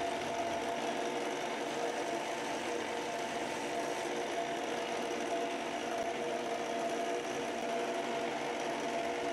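A 4x36 belt sander running with a steady hum while an epoxy resin knife handle is ground against the belt at a small contact wheel to shape finger contours.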